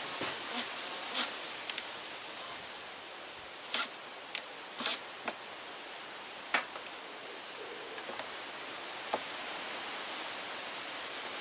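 Scattered short clicks and taps from a solar spotlight and its fittings being handled and fitted, over a steady hiss. The loudest taps come close together about four to five seconds in.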